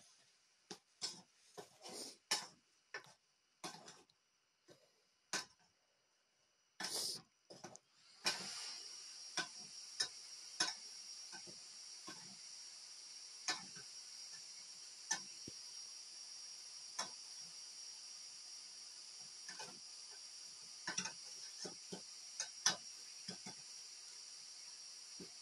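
A metal spoon stirring in a steel cooking pot gives irregular light clicks and knocks, several a second at first and sparser later. A steady high hiss joins abruptly about eight seconds in.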